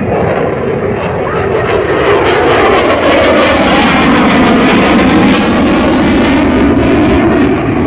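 Eurofighter Typhoon's twin EJ200 jet engines at full display power as the fighter flies past. The jet noise builds over the first couple of seconds, holds loud with a pitch that sinks as it passes, then starts to ease off near the end.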